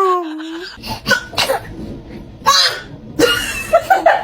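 A baby's sneezes: a squeaky voiced cry falling in pitch at the start, and a second short, sharp burst about two and a half seconds in. An adult laughs in quick pulses near the end.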